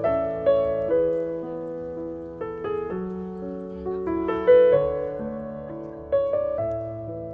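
Piano music: a melody of struck notes over lower chords, each note starting sharply and fading as it rings.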